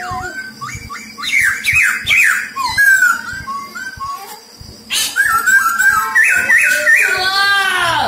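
A caged black-throated laughingthrush singing: loud runs of quick, slurred whistled notes, with a quieter pause about halfway through and a fast falling series of notes near the end.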